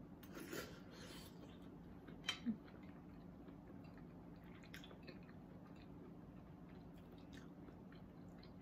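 Quiet eating sounds of a person chewing fried fish picked apart by hand, with soft mouth and finger noises and two sharp clicks close together about two and a half seconds in, over a steady low hum.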